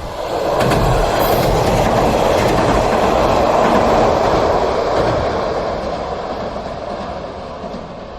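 A train passing close by: its noise swells within the first second, stays loud for a few seconds, then fades away.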